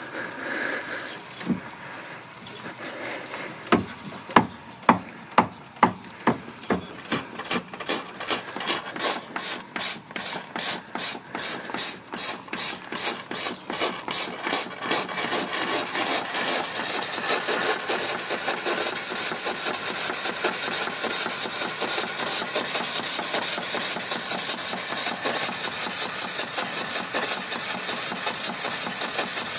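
Stuart 5A steam engine starting up: its exhaust beats come slowly at first, about two a second, then speed up until by the middle they blur into a steady fast chuffing with steam hissing.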